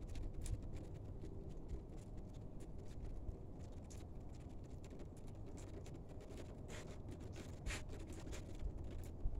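Snow pellets falling and ticking irregularly, many faint ticks a second, over a low steady rumble.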